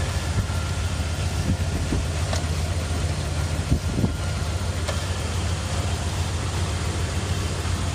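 Dodge Ram 1500 engine idling steadily, run with the radiator open to circulate water through the newly replaced radiator.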